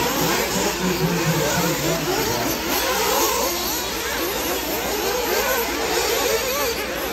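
Several radio-controlled off-road buggies racing, their motors revving up and down in overlapping rising and falling whines.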